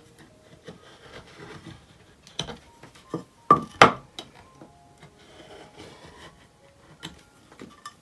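A utility knife and a painted tile being handled on a tabletop: soft rubbing and handling noise, with a few sharp knocks between two and four seconds in, the loudest pair near four seconds. Faint background music runs underneath.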